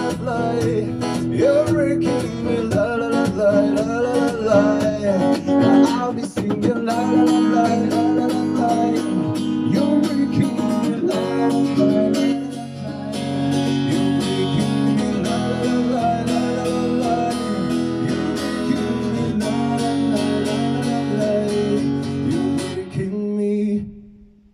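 Steel-string acoustic guitar strummed in a steady rhythm through the song's closing bars, with a man's wordless vocal ad-libs over it. Near the end it settles on a held final chord that quickly fades out.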